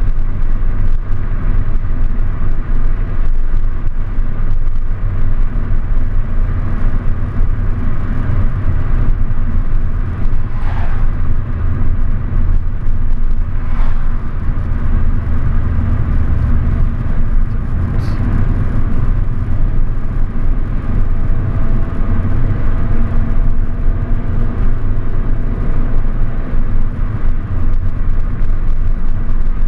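Car driving at slow road speed, its engine and tyre noise a steady low rumble. Three short higher-pitched sounds come through around the middle.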